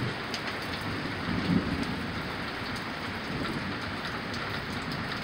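Steady rain falling during a thunderstorm, an even hiss with scattered drips.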